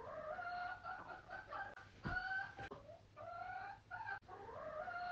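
Hens clucking, a run of drawn-out calls with short breaks between them.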